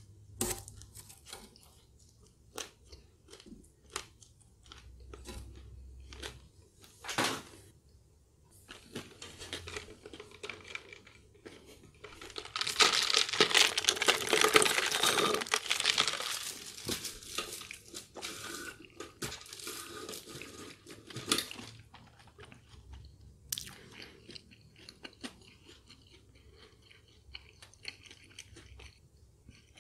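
Close-miked eating sounds: scattered chewing and mouth clicks, with a few seconds of loud, noisy sipping through a straw about halfway through.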